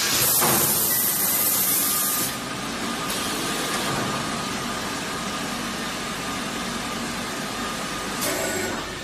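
DB-720/1220 automatic plastic vacuum forming machine running. A loud hiss of compressed air from its pneumatics lasts about the first two seconds, then the machine runs with a steady mechanical noise and a faint steady whine. Another short hiss comes near the end.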